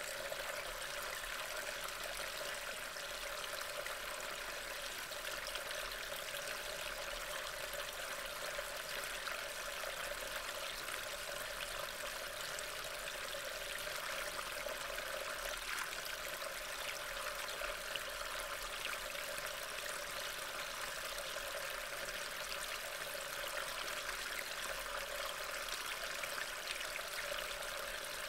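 Steady rain falling on leaves and wet ground, heard as a constant, even hiss.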